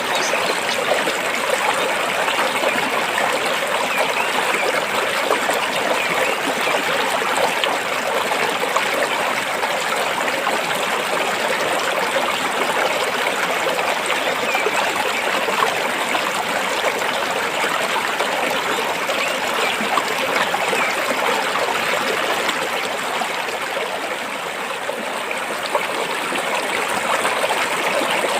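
A shallow stream flowing and splashing over rocks: a steady, dense rush of water with many small gurgles and splashes.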